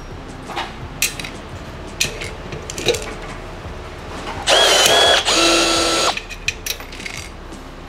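Milwaukee M18 FRT cordless rivet tool setting an aluminium rivet: its motor runs in two back-to-back bursts of under a second each, the second at a steadier, lower pitch. A few sharp clicks come before it.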